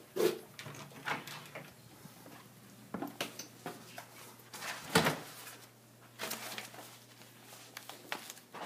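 Scattered knocks and clicks of people moving through a tiled house: the loudest near the start, at about three seconds and at about five seconds. A faint steady low hum runs underneath.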